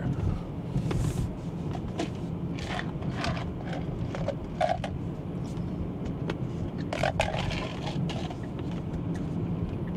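Road and tyre noise inside the cabin of a 2024 Tesla Model 3 Performance under way, a steady low rumble with scattered light clicks and ticks.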